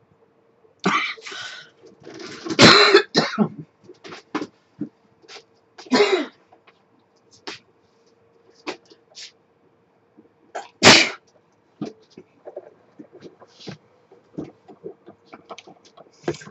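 A woman coughing in several separate fits, the loudest about 3 s in and again about 11 s in, from a tickly throat that she puts down to pollen.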